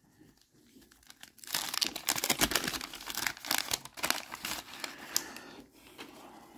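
Wax-paper wrapper of a 1990 Bowman baseball card pack crinkling and tearing as it is peeled open by hand. It starts about a second and a half in and dies down near the end.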